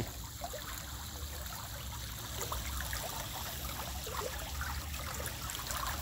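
Water running steadily through a crab pond's sluice gate, a continuous gentle rushing trickle that grows slightly louder near the end.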